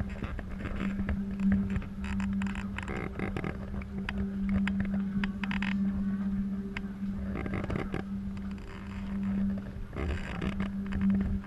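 A steady motor hum, one unchanging pitch, with a low rumble beneath and patches of crowd noise coming and going.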